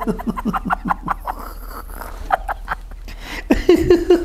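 A woman laughing hard behind her hands: quick breathy pulses of laughter that thin out midway, then a held vocal tone near the end.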